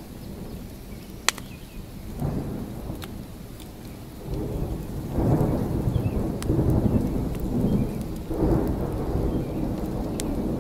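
Rolling thunder over steady rain: deep rumbles swell about two seconds in, build from about four seconds, and roll again near the end, with a few sharp crackles scattered through.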